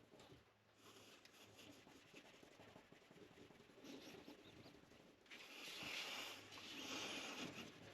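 Cloth towel rubbing polish into the plastic scale of a Victorinox Swiss Army knife to buff out swirl marks: a faint, scratchy rubbing hiss that gets louder for a couple of seconds near the end.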